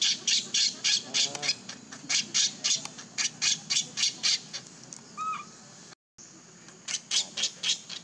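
Baby macaque screaming in rapid, harsh, repeated cries, about four a second, a sign of distress as it rolls on the ground. The cries stop briefly past the middle, where a short chirp is heard, then a few more come near the end.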